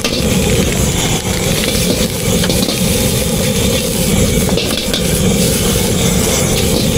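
Food sizzling in hot oil over a steady low roar, typical of a gas-fired street-food cooking station.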